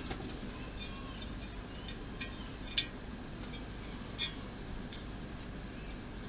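Small plastic model-kit parts clicking and tapping against each other as a piece is handled and fitted, in a handful of sharp separate clicks, the loudest about three seconds in.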